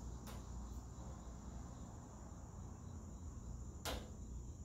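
Quiet workshop room tone with a faint steady high-pitched whine, and two soft clicks, one just after the start and one near the end, as a tape measure is handled at the car's rear.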